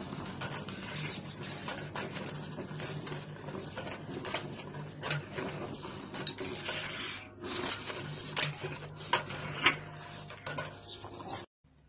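A pug pawing and batting at a toilet-paper roll on its wall holder: a fast, irregular clatter of claws scratching and the roll and holder rattling. It cuts off suddenly near the end.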